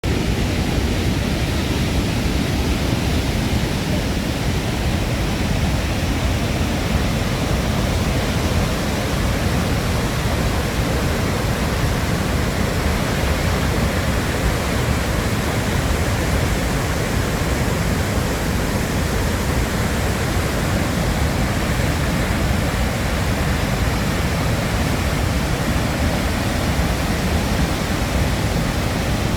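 Dettifoss waterfall: a loud, steady rush of heavily falling water, deepest and strongest in the low range, with no change throughout.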